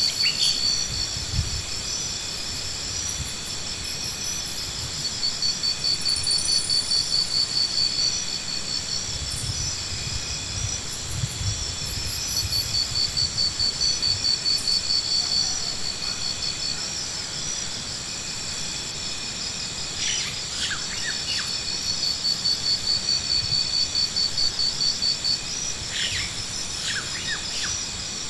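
Insects trilling steadily at a high pitch, the song swelling into a rapid pulsing three times for a few seconds each. A few short bird chirps come in near the end.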